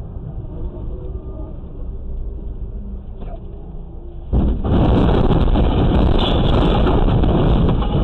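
Low, steady road and engine rumble of a car driving. About four seconds in, a loud rushing noise starts suddenly and holds for about four seconds.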